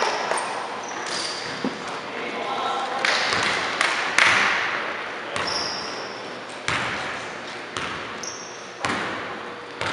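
Basketball dribbled on a hardwood gym floor, the bounces coming about once a second and echoing in the large hall, with brief sneaker squeaks and players' voices.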